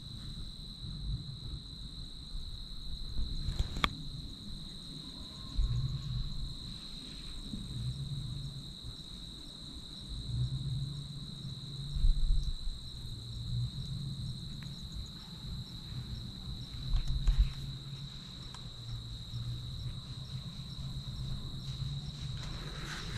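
A steady, high-pitched insect drone, like a chorus of crickets, holding one pitch throughout, over a low uneven rumble of wind on the microphone that surges louder twice, about twelve and seventeen seconds in.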